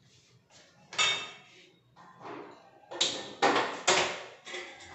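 Steel pots and utensils clattering on a gas stove and counter: one knock about a second in, then three quick knocks with a short metallic ring near the end.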